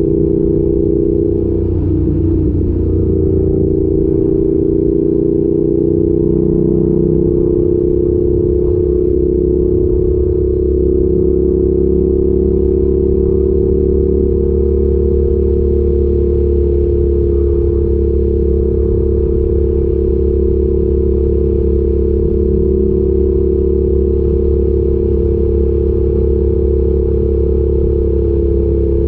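Yamaha YZF R7's 689 cc parallel-twin engine with an Arrow exhaust, running steadily while riding, its note drifting slightly in the first few seconds and then holding level.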